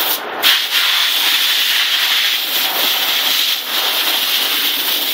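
Garden hose spraying water in a steady hiss, washing water along the ground, with a brief break in the spray near the start.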